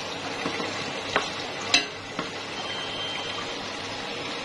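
Chicken pieces sizzling in hot oil in a metal pot, stirred with a wooden spatula that knocks sharply against the pot a little over a second in and again just before two seconds.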